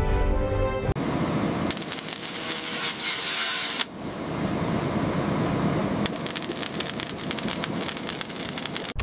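Rocket launch: a loud rushing hiss with sharp crackling, taking over from music about a second in and shifting abruptly several times, with a dense run of crackles in the last three seconds.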